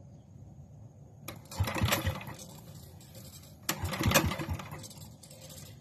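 Old portable generator's engine being cold-started by its pull cord: twice it turns over in a quick run of chugging knocks for about a second and then dies away without staying running.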